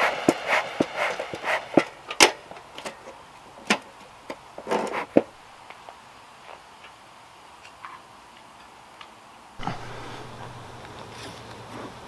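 Pine-needle fuel crackling and popping as it catches fire in a stainless-steel bee smoker: sharp, irregular pops, thickest in the first five seconds and then thinning out. About ten seconds in it gives way to a steady, low outdoor background.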